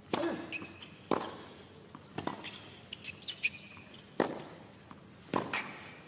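A tennis rally on a hard court: about five sharp racket strikes on the ball, one to two seconds apart, with brief high shoe squeaks on the court surface between them.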